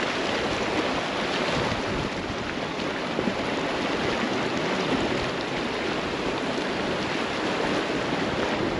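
Steady rushing of flash-flood water.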